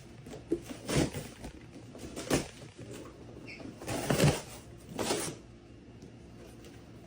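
Cardboard box being worked open by hand, the stapled side pulled loose: four short scraping, rustling bursts spread over a few seconds, the loudest about four seconds in.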